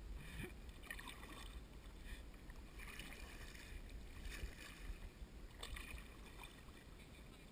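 Faint kayak paddle strokes splashing in river water, about every second and a half.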